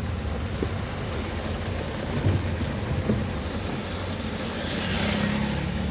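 Heavy monsoon rain on a moving car, over a low rumble of engine and road noise, with a louder wash of noise near the end.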